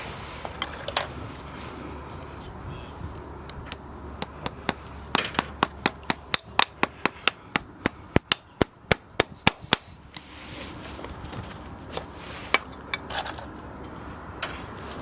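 Farrier's hammer striking in a quick, even run of sharp blows, about four or five a second, starting about three and a half seconds in and stopping near the ten-second mark; a few lighter, scattered knocks come before and after.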